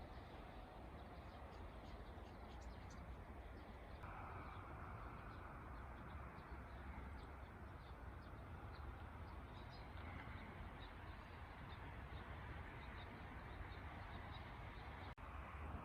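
Faint outdoor ambience: a steady low wind rumble with scattered, brief small-bird chirps.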